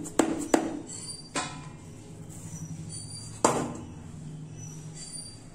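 Metal clinks of a kadai and spatula against a metal plate as soft semolina dough is tipped and scraped out: a few light knocks at first, then two sharper ringing clinks, about a second and a half in and again near three and a half seconds.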